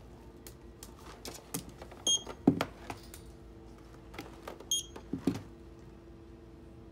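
Checkout barcode scanner beeping twice, about two and a half seconds apart, as cereal boxes are scanned. Each beep is followed by the knock and rattle of the box being handled. A steady low hum runs underneath.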